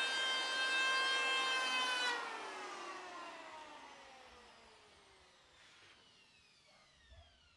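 Electric hand planer running with a high, steady whine, then switched off about two seconds in, its whine falling in pitch and fading as the cutter drum winds down. A light knock near the end.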